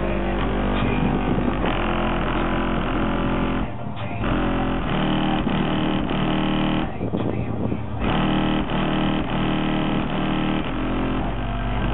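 Loud music with heavy, sustained deep bass played through a car audio system with two 15-inch Kicker L7 subwoofers, heard from outside the vehicle. The bass drops out briefly about four seconds in and again for about a second near the middle.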